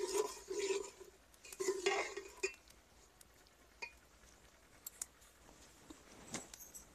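Steel spoon scraping and stirring semolina in hot ghee inside an aluminium pot, in two bouts in the first couple of seconds, followed by a few light clinks of the spoon against the pot. The semolina is being fried in the ghee, the first stage of making suji halwa.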